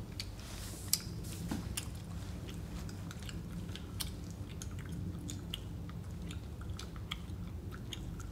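People eating crunchy snacks: chewing and crunching, with scattered small clicks and rustles of food packaging, over a low steady hum.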